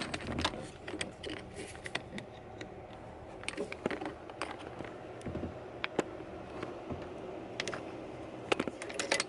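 Scattered light clicks and taps from a flathead screwdriver working loose a small black plastic locking piece that holds the hydraulic lines on a convertible-top pump.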